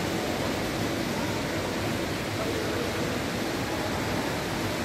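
Steady, even rush of water from a small indoor fountain.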